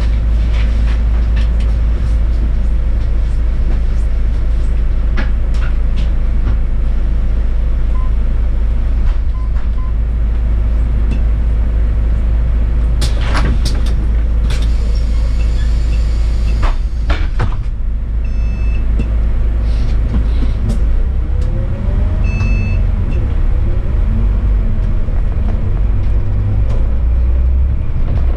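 City bus's diesel engine running, a steady low rumble heard from inside the bus, with scattered clicks and knocks. About halfway through there is a brief hiss, followed by two short electronic beeps a few seconds apart. In the second half the engine note rises and falls as the bus pulls away.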